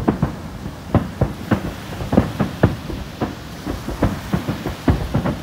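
Japanese aerial firework shells bursting in a rapid barrage: irregular booms and cracks about three a second, overlapping, with a steady low rumble underneath.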